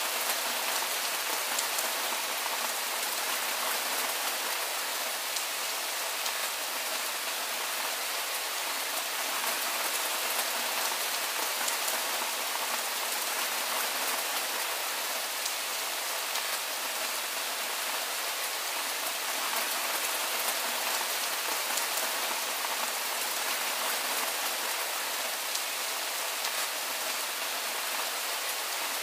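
Soft rain falling steadily: an even hiss with faint scattered drop ticks.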